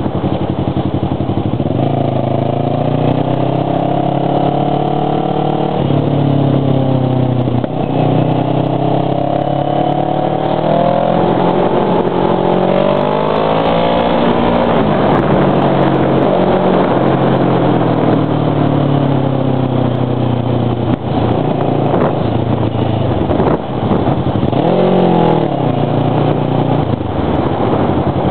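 Kawasaki Ninja 650R's parallel-twin engine under way, its revs climbing and stepping through gear changes in the first half, then easing off and picking up again. Near the end the revs rise and fall quickly once. Wind rush on the helmet-mounted microphone runs under it.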